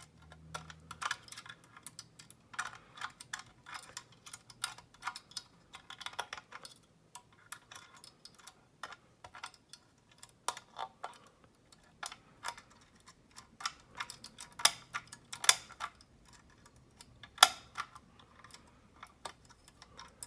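Lock-picking tools working inside a large padlock: irregular metal clicks and scrapes of the pick and tension tool against the lock's internals, with a few louder clicks near the end.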